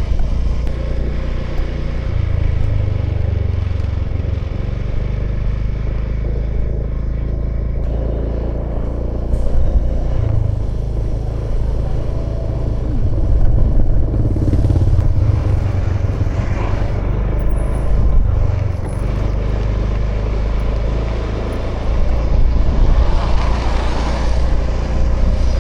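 2018 Honda Vision scooter's small single-cylinder engine running at a steady riding speed, with a louder, brighter stretch of noise near the end.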